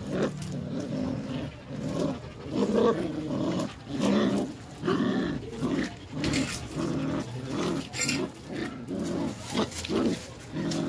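Belgian Malinois puppies growling in play as they pull at a tug toy, in short rough bursts that follow one another every half second or so.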